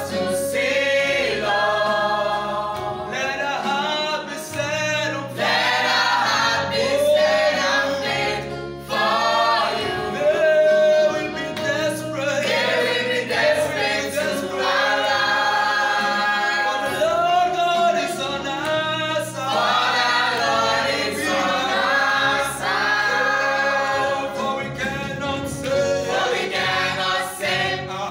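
Mixed church choir of men and women singing a gospel song together, with a keyboard holding low sustained chords underneath that change every couple of seconds.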